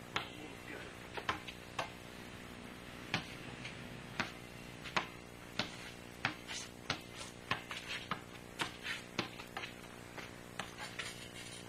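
Irregular sharp clicks and knocks, two or three a second, over a steady electrical hum.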